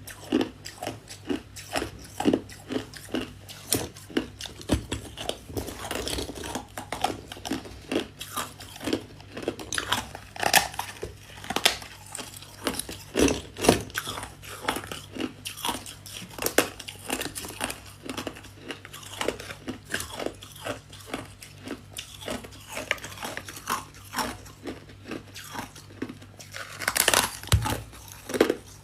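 Close-up biting and chewing of crunchy freezer frost: a steady run of sharp crunches, about two or three a second, with a louder flurry near the end. A faint steady low hum runs underneath.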